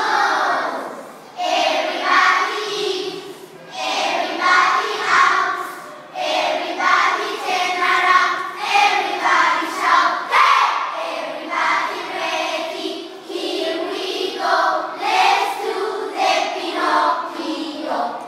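A group of young children singing together, line after line with short breaks.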